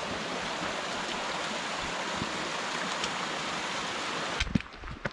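Steady rush of a mountain stream. It cuts off suddenly about four and a half seconds in, and a few sharp knocks follow.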